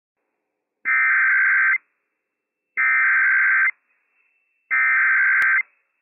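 NOAA Weather Radio EAS SAME header: three one-second bursts of digital data tones, a harsh buzzy warble, sent about two seconds apart. The bursts encode the alert, here a Child Abduction Emergency (Amber Alert), and are meant to trigger Emergency Alert System receivers.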